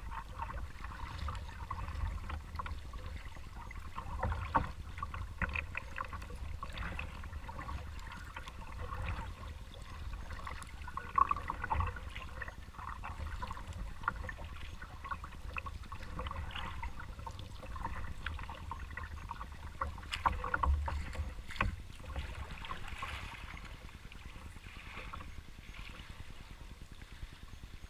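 Kayak paddle working the water: irregular small splashes and drips, a few louder about a quarter, two fifths and three quarters of the way through, over a low rumble.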